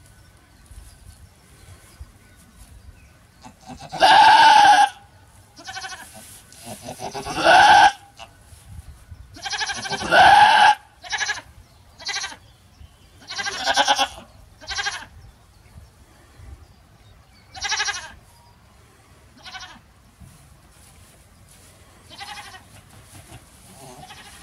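A goat doe in labour bleating again and again. Three long, loud bleats come in the first half, then a run of shorter, fainter bleats every second or two, thinning out toward the end.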